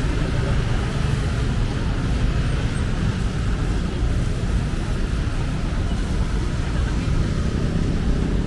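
Steady city street noise on a rainy day: a wash of traffic hiss with a heavy low rumble. Near the end a vehicle's engine begins to rise in pitch.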